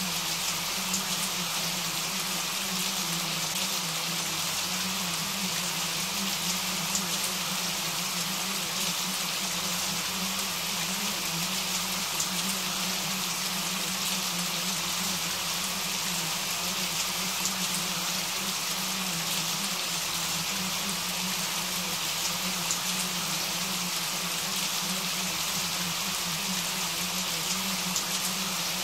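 Steady, even rain falling, a constant hiss with the odd louder drop ticking through it and a low steady hum underneath.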